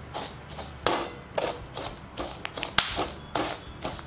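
Perforated metal skimmer scraping and stirring dried corn kernels through hot salt in a kadhai, in gritty strokes at about two a second, with a few sharp clicks as kernels pop in the heat.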